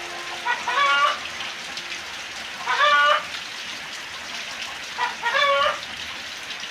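Steady rain falling, with three short pitched animal-like calls about two seconds apart standing out above it.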